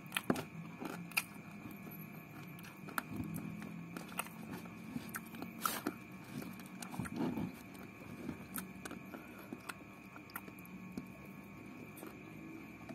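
A person chewing rice and chicken eaten by hand, with scattered small clicks and smacks of eating and light handling of the paper food wrapping, over a faint steady hum.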